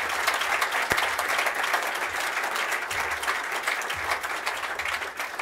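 A large seated audience applauding, dying away near the end.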